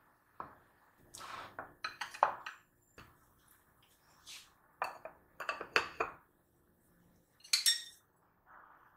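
Dishes, pots and cutlery clattering and clinking in a few short bursts of knocks, with a bright ringing clink near the end.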